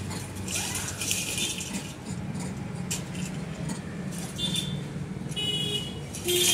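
Outdoor background with a steady low hum, light metallic jangling and rattling, and a single sharp click about three seconds in.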